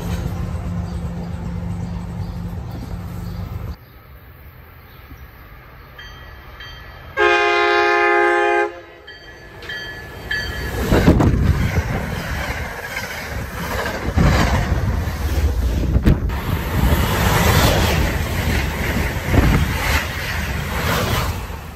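A commuter train's engine hums steadily, then cuts off. An approaching train sounds its horn once, a chord of several tones held for about a second and a half, and a passenger train then rushes past with loud wheel and air noise and repeated clacks of wheels over the rails.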